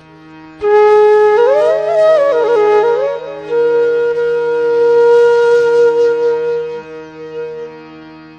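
Background music: a melody with sliding, ornamented notes over a steady drone. It enters about half a second in and settles into a long held note.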